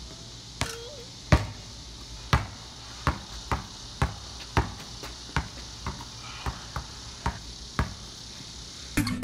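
A basketball being dribbled: sharp single bounces, roughly two a second at an uneven pace, over a faint steady hiss.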